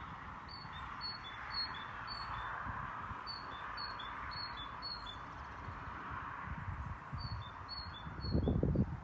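A small songbird singing three phrases of quick repeated two-note calls, each a higher note followed by a lower one, over a steady background hiss. A few low thuds come near the end.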